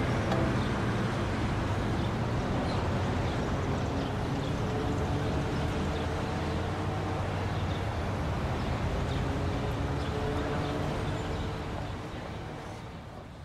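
Steady urban traffic ambience, a low even hum of vehicles, fading out near the end.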